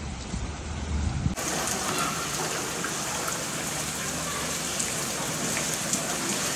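Heavy rain falling on floodwater, a steady hiss. For about the first second it is a duller recording with a low rumble, then it switches abruptly to a brighter, closer sound of rain on the water.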